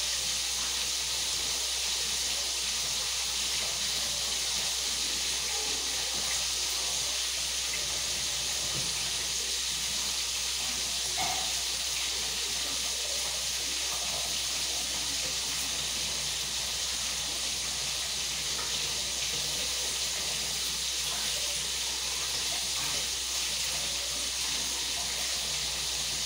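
Water running steadily from a kitchen sink tap, an even rushing hiss with a low steady hum beneath.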